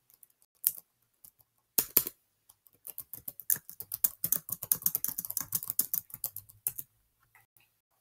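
Typing on a computer keyboard: a few single clicks in the first two seconds, then a quick run of keystrokes for about four seconds, tapering to a few faint clicks near the end.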